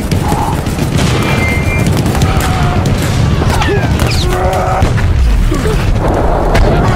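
Sci-fi film battle sound effects: a dense run of explosions and weapon fire over a constant low rumble, with music beneath.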